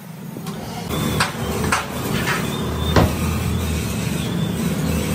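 A few sharp knocks from heavy cast-iron tractor differential housings being shifted on the ground, the loudest about three seconds in, over a steady low engine drone that comes up about a second in.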